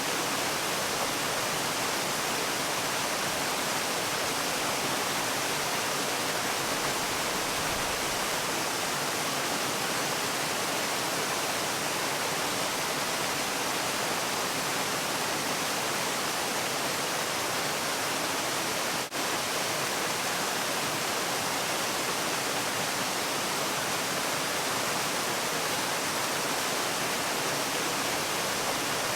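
Waterfall: a steady, even rush of falling water, with a momentary dropout about two-thirds of the way through.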